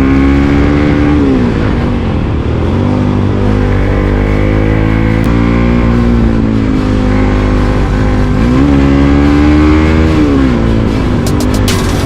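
Motorcycle engine running under changing throttle: its pitch drops and climbs again several times, with a few sharp clicks near the end.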